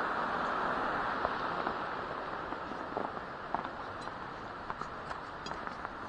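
Wood fire in a brick fire pit crackling: scattered sharp pops, more of them in the second half, over a steady hiss that slowly fades.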